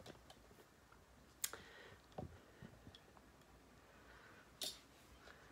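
Near silence: faint room tone with a few short sharp clicks, one about a second and a half in and another near the end, and a softer knock between them.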